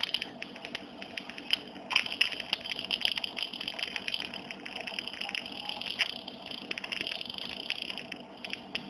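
Medical suction tube drawing fluid out of the middle ear: a steady hiss with irregular crackling clicks as the liquid is sucked up.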